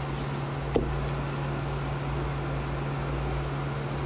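A steady low machine hum, with one faint click about three-quarters of a second in.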